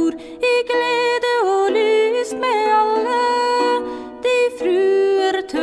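Nordic folk ballad music: a slow, ornamented melody line with sliding, bending notes.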